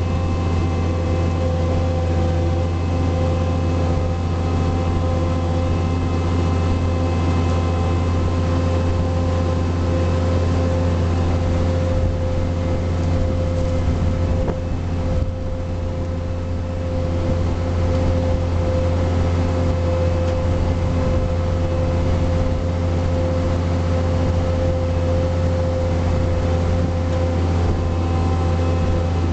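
John Deere 4700 self-propelled sprayer running steadily under way in the field: a constant low diesel drone with a steady whine on top, easing off slightly for a moment about halfway.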